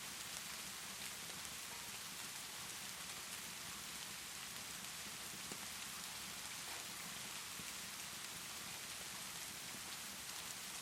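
Steady rainfall, an even hiss with scattered faint ticks and pops.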